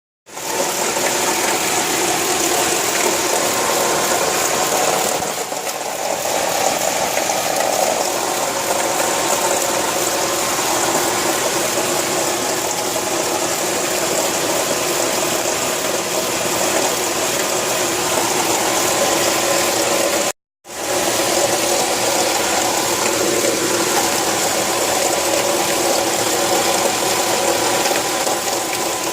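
Nissan SR20DE 2.0-litre four-cylinder engine running with a failed alternator bearing making a horrible, steady mechanical noise. The sound cuts out briefly about two-thirds of the way through.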